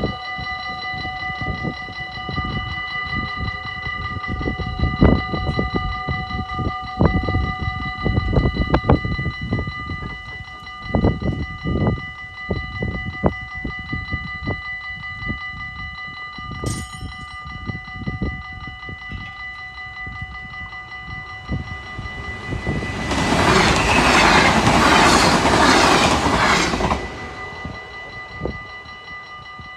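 Level-crossing warning bells ringing steadily. About 23 seconds in, a train passes at speed for about four seconds, the loudest sound.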